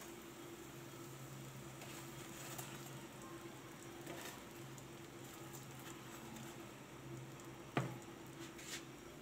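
Faint crackle of hot oil in a pan where puris are deep-frying, over a steady low hum. A few light clicks, and one sharper click near the end as the cooked puris are handled on a ceramic plate.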